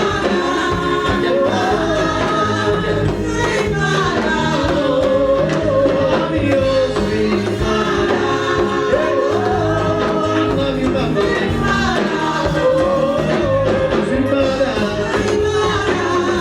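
Gospel praise music with singing over a steady rhythmic band accompaniment.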